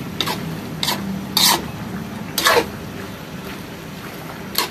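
A metal spatula scraping and knocking against a wok while pork intestines are stirred in their adobo sauce, about five separate strokes, two of them louder and longer near the middle. A steady low hum runs underneath.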